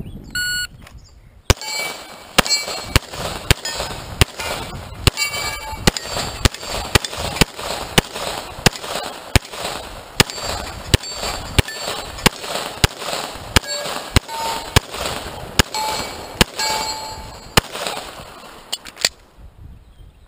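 Shot-timer beep, then rapid semi-automatic pistol fire, a shot about every half second for some seventeen seconds. Steel targets ring with clangs after many of the hits. The firing stops about a second before the end.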